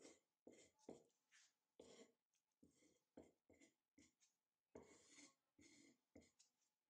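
Knife blade scraping a resin-rich fatwood stick into fine shavings: faint, short dry scrapes about two a second, with one longer scrape about five seconds in.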